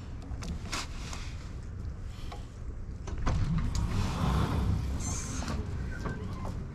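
Automatic sliding glass door opening: a motor hum and rumble that swells about three seconds in and lasts a couple of seconds.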